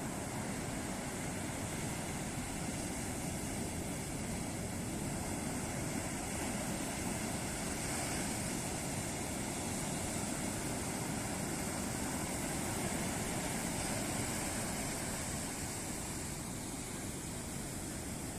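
Ocean surf breaking on a beach, a continuous wash of waves that swells a little in the middle and eases near the end.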